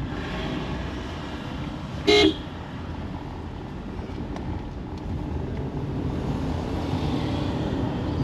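Steady engine and road noise of a moving car, with one short car-horn toot about two seconds in, the loudest sound.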